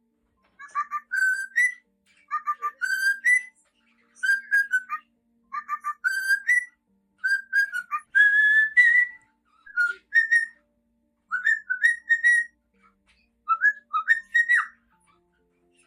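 Cockatiel whistling its song: short phrases of quick chirping notes, each ending in a rising whistle, repeated about every second and a half.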